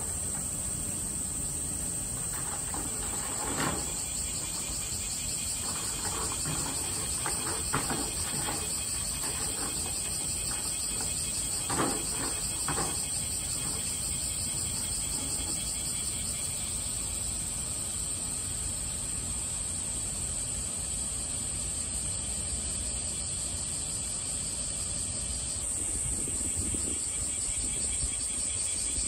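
Steady high-pitched insect drone, typical of summer insects in the trees, with a few brief soft knocks in the first half.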